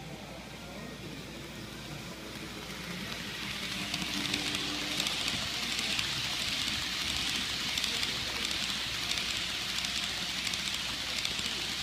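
Fleischmann N-scale ICE 1 model train running past on the track: a rushing whir that grows louder over the first few seconds as the train approaches, then holds steady, with faint rapid clicking.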